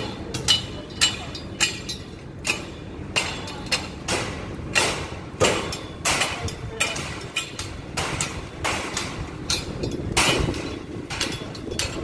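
Construction-site hammering: sharp, ringing blows, irregular, about one to two a second, over a steady low rumble of site machinery.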